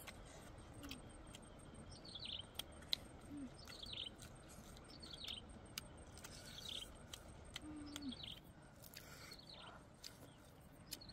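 A small bird chirping: short, high, falling notes repeated about once a second. Faint sharp clicks are scattered through it, and a few brief low hums can also be heard.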